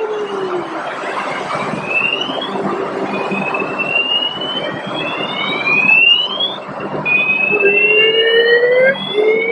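Parking-garage fire alarm sounding: a string of rising tones, several overlapping, over a steady low hum.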